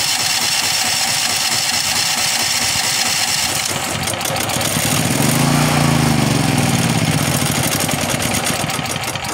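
Firman H07552 generator's single-cylinder engine, converted to run on natural gas, being cranked by its electric starter. About five seconds in it briefly fires, rising and then falling in pitch, but it does not settle into running: a cold engine slow to start on natural gas with little gas yet in the line.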